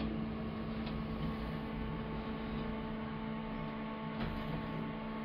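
Elevator machinery running with a steady, even hum during travel, with a couple of faint clicks.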